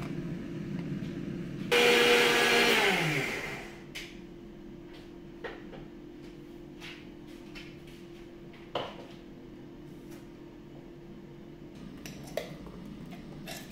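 Electric mixer grinder running loudly for about two seconds, grinding mint and coriander leaves with water into chutney, then spinning down as it is switched off.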